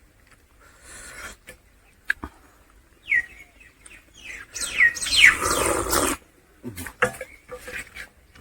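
Close-miked eating sounds: scattered mouth clicks and lip smacks while chewing, with a louder wet slurping stretch about five to six seconds in. A few short high chirps falling in pitch come between about three and five seconds in.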